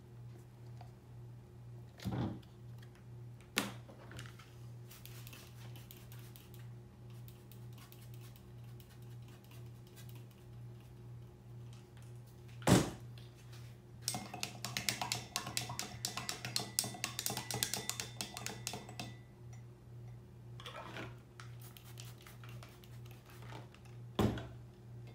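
Small knocks and clatter of brewing gear being handled on a table, with one sharp knock about halfway and a few seconds of rapid clinking and rattling just after it, over a steady low hum.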